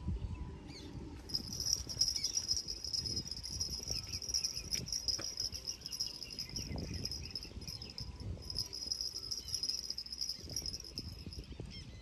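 Insects chirring in a steady high trill that starts about a second in and runs on with a few short breaks, over low rustling and a few faint knocks.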